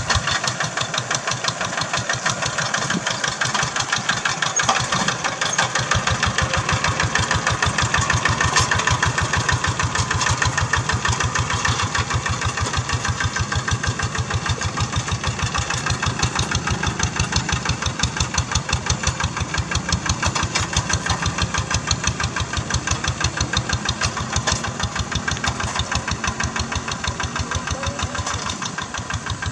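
Single-cylinder diesel engine of a walk-behind two-wheel hand tractor chugging steadily under load while it plows a paddy field, with a rapid, even firing beat.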